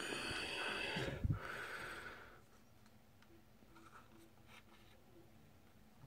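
A loud, noisy breath of about two seconds, like a nasal exhale close to the microphone, with a thump about a second in. After it come faint clicks of the plastic car key fob being handled, and a small click at the end.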